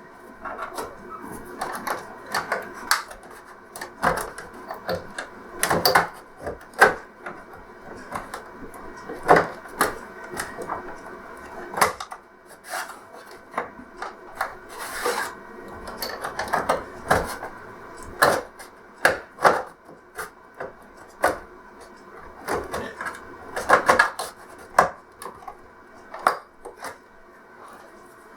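Plastic pry pick working around the seam of an LCD TV's plastic casing: irregular clicks and snaps as the clips pop free, with scraping and rubbing of plastic on plastic between them.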